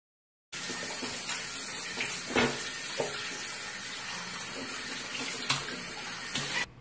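Steady rush of running water with a few brief knocks. It starts abruptly about half a second in and cuts off suddenly near the end.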